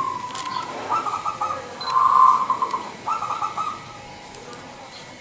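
Zebra dove (perkutut) cooing: three phrases of fast, trilled coo notes, about a second apart, the middle one the loudest.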